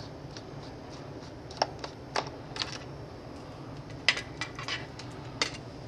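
Irregular sharp clicks and taps of a screwdriver and fingers on the plastic underside of a Toshiba Satellite C655 laptop around its hard drive bay, the loudest about four seconds in, over a low steady hum.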